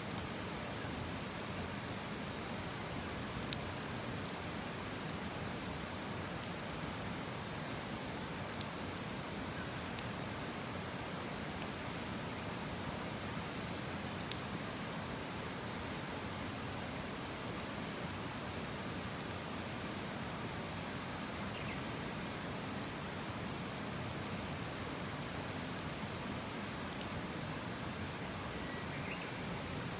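Wood campfire burning with a steady hiss and a few sharp, isolated pops and cracks.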